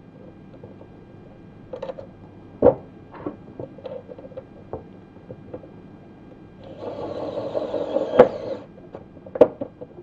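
Small pen-style electric screwdriver running for about two seconds near the end, driving a screw into a model aircraft's fuselage. Scattered light clicks and knocks of tools being handled come before and after it.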